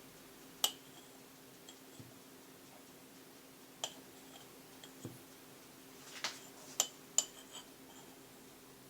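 Kitchenware clinking: scattered light clinks, each with a short ring, one about a second in and several close together in the second half, over a steady low hum.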